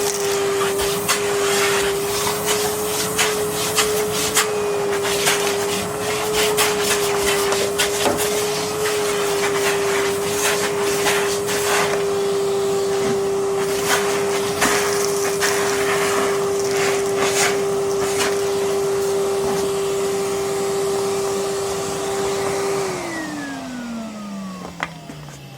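Numatic Henry Xtra canister vacuum cleaner running with a steady motor whine and frequent clicks and rattles. Near the end it is switched off and the motor winds down in a falling whine.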